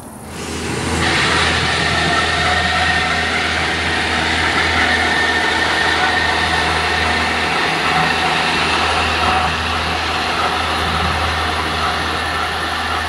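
Diesel railcar pulling away, its engine running steadily under a wash of wheel and rail noise. The sound comes in about half a second in and stays loud and even.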